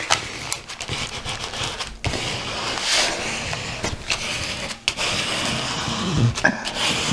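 A scraper pushed hard over baking paper laid on a diamond-painting canvas: scraping and crinkling of paper in repeated strokes, with a few short breaks, pressing the creases out of the canvas.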